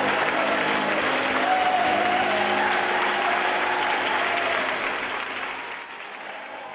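An audience applauding, with music held faintly beneath, fading out over the last couple of seconds.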